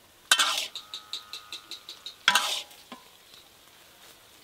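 Long metal ladle scraping and stirring in an iron kadai of frying lamb kidneys: two loud scrapes about two seconds apart with a run of quick ticks and a faint metallic ring between them, the kidneys sizzling in the pan.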